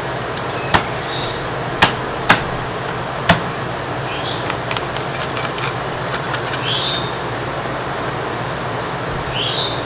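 Chinese cleaver chopping into the ribs of a split suckling pig on a wooden board: four sharp chops in the first few seconds, then lighter cracks and taps of the blade on bone. A steady hum runs underneath.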